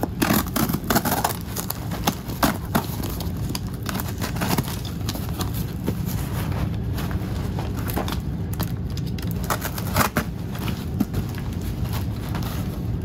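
Utility knife cutting through packing tape and cardboard on a shipping box, with scraping, crackling and repeated short clicks as the box is handled.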